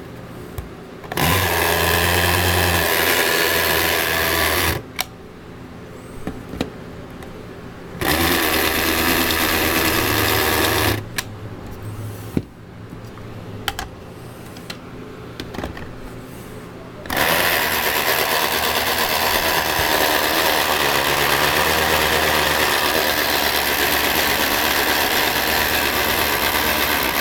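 Small electric motor of an Estrela toy mini mixer-blender running steadily, switched on three times: briefly twice, then for about ten seconds near the end. Between runs there are a few small clicks of handling.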